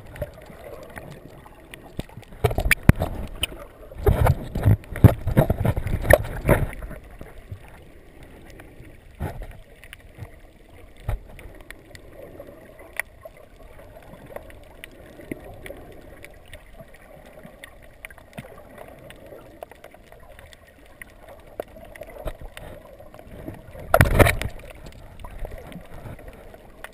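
Underwater sound heard through a GoPro's waterproof housing: a steady muffled wash of moving water, broken by loud bursts of splashing and bubbling from about two to six seconds in and again near the end.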